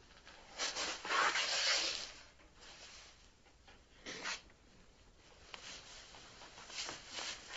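Clothing rustling as two people embrace: a longer rustle about a second in and a short one around four seconds.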